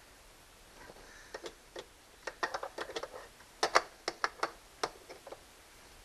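A string of light, irregular metal clicks and taps, about fifteen of them, from hands handling small steering hardware. They start about a second in, and the loudest pair comes near the middle.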